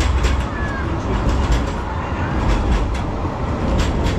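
Rail vehicle passing close by: a heavy low rumble with irregular sharp clicks of wheels over the rails, and a brief high squeal early on.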